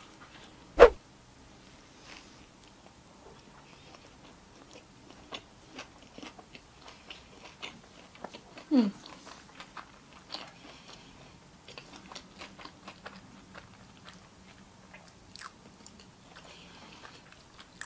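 Close-miked eating of a toasted Subway pork rib sandwich: one sharp bite about a second in, then steady chewing with small wet smacks and clicks. About halfway there is a brief falling hum.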